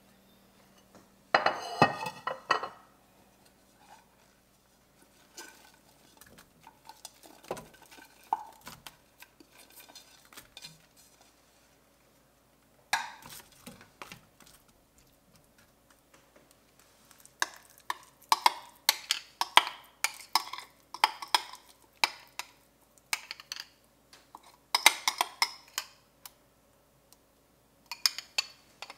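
A wooden spoon knocking and scraping against a stainless-steel sauté pan as raw chicken pieces and chopped onion are stirred. It comes in spells of quick clattering strokes, busiest in the second half.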